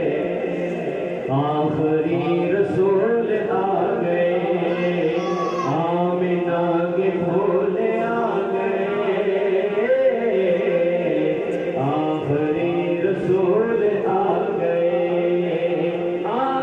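A male voice chanting a devotional recitation into a microphone, with melodic phrases over steady held notes.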